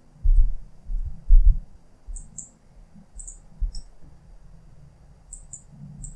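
Computer mouse buttons clicking, several times in quick pairs (double-clicks). A few dull low thumps in the first second and a half, and one more partway through, are the loudest sounds.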